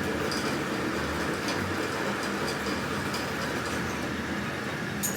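Steady machine noise running evenly, with a few faint ticks.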